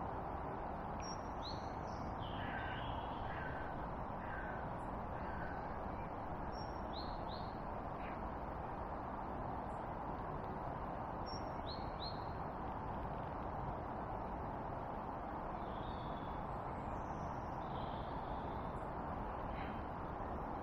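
Wild birds calling over a steady background hiss: scattered short, sharp chirps, and a run of four lower call notes about a second apart, two to six seconds in.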